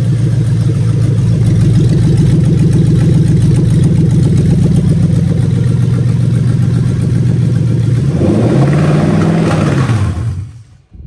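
Toyota 1UZ-FE VVT-i 4.0-litre V8 running steadily. About eight seconds in it briefly rises in pitch and falls back, then dies out near the end: the engine stalling as it runs out of fuel with the fuel pump cut.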